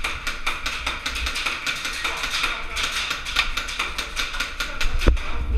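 Rapid runs of sharp clicks from airsoft guns firing, with one louder knock about five seconds in.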